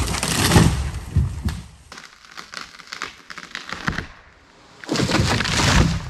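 A felled tree, about 25 inches across, crashing down: a heavy crash with cracking and snapping wood at the start, scattered cracks of breaking limbs, and a second heavy crash about five seconds in.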